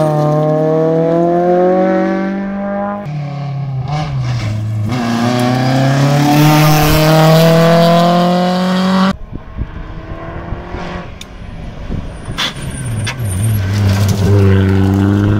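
Rally car engines accelerating hard along a tarmac stage, the pitch climbing through a gear, dropping briefly, then climbing again. About nine seconds in the sound cuts off suddenly to a quieter stretch with a few clicks, and near the end another car's engine revs up.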